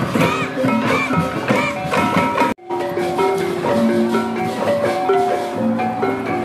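Music carried by pitched mallet percussion playing a running melody of struck notes; the sound drops out completely for an instant about two and a half seconds in, then resumes.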